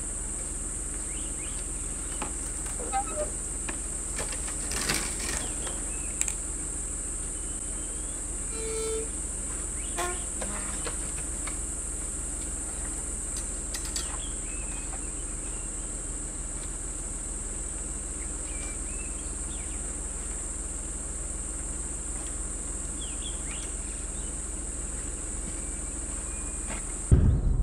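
A steady, high-pitched drone of insects over the low hum of the car's idling engine. A few clicks and knocks come as the gate is handled, with a short squeak about nine seconds in.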